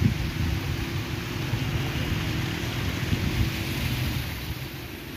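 Wind buffeting the microphone: an uneven, gusty rumble with a steady hiss over it, easing off slightly near the end.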